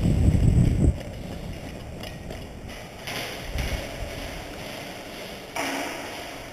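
Loud low rumble of movement and wind buffeting on a body-worn camera microphone in the first second as the player dashes across. Then quieter footsteps and scuffs on a wet concrete floor, with a brief louder noise about five and a half seconds in.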